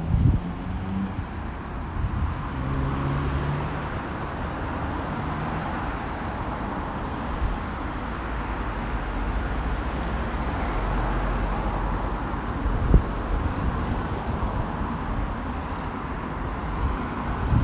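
City street ambience: steady noise of road traffic, with a low engine hum early on and one sharp knock about 13 seconds in.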